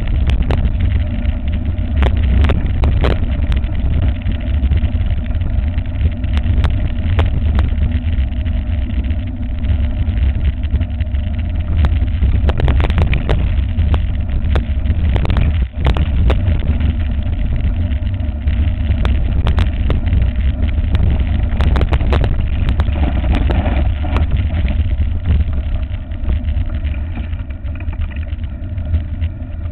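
A mountain bike rolling fast down a gravel track, heard from a camera on the bike: a constant low rumble of wind and vibration on the microphone, with frequent sharp clicks and rattles from the bike and loose stones.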